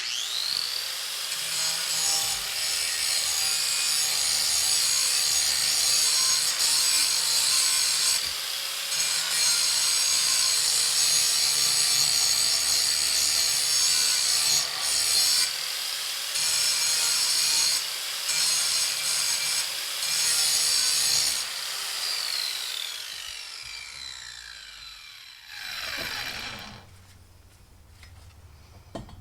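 Electric grinder grinding the cutting edge of a steel lawn mower blade: the motor whine climbs quickly at the start, and the grinding is steady apart from a few brief breaks where the tool lifts off the edge. It is then switched off and the whine falls in pitch as it spins down over several seconds.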